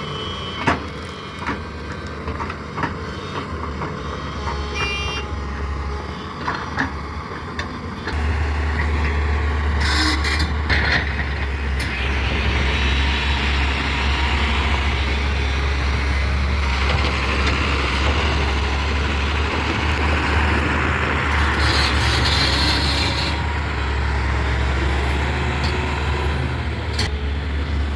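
Heavy diesel machinery running with a steady low drone that grows louder about eight seconds in. Two short hissing bursts and a long stretch of rushing noise sound over it.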